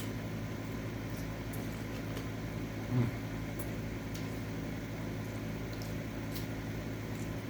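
Steady hum of a running room cooling fan (AC unit), with faint mouth clicks of someone chewing food and one brief low thump about three seconds in.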